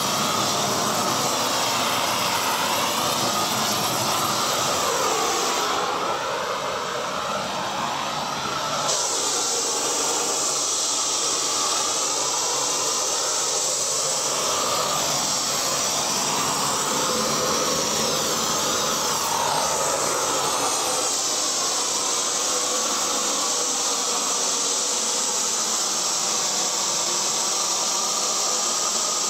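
Propane wand torch burning with a loud, steady rushing hiss as the flame is played over cladding boards. Its tone sweeps up and down as the torch moves, and it turns duller and a little quieter for a few seconds about six seconds in.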